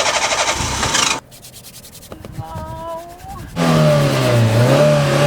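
Lancia Y's starter motor cranking the cold engine in rapid, even strokes, with the engine slow to fire. The sound drops away about a second in. Then a louder, low-pitched sound starts about two-thirds of the way through, its pitch dipping and rising again.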